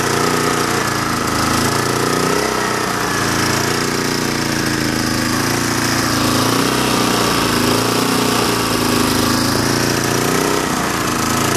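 Small portable gasoline generator's engine running steadily, fed by gasoline vapor drawn from a jar through a hose into the carburetor instead of liquid fuel.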